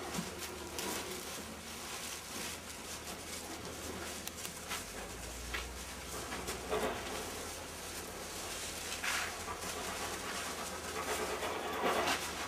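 Dry, cured tobacco leaves rustling as they are handled, sorted and pressed onto a stack, with a few brief louder rustles.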